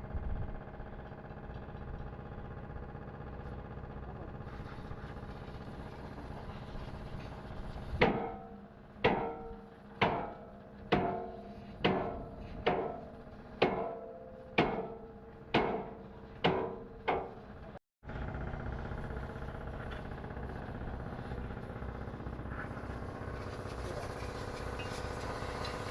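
Hammer striking a steel truck chassis frame, about ten ringing metal blows roughly one a second, starting about a third of the way in and stopping abruptly at a cut. A steady hum runs before and after the blows.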